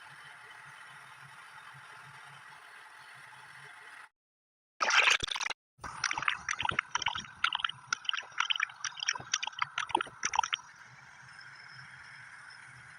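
A steady hiss cuts out suddenly, then a loud burst and about five seconds of rapid, irregular wet popping and gurgling, before the hiss returns.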